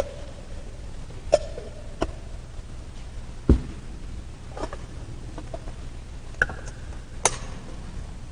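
Metal altar vessels (gold chalices and a ciborium) clinking and knocking as they are handled and set down on the altar: about seven separate clinks, several with a short ringing tone, and a dull thump about three and a half seconds in. A steady low hum runs underneath.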